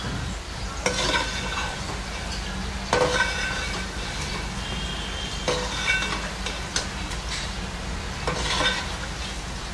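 A steel ladle stirring and scraping wet, marinated chicken pieces in a stainless-steel pot: a handful of separate metal-on-metal scrapes with faint ringing, one every second or two.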